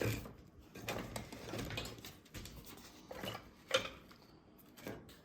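Faint, scattered handling clicks and rustles, with one sharper click about four seconds in.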